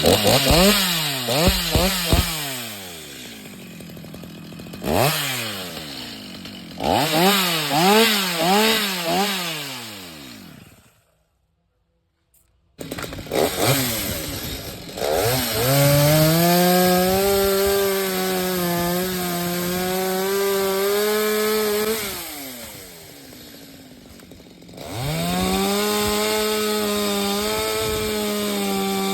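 Stihl two-stroke chainsaw revved up and down in repeated throttle blips, then held at a steady high pitch, which with the wood and sawing tags is typical of the chain cutting into the wood. It drops back to idle for a few seconds about three quarters of the way through, then runs up steady again.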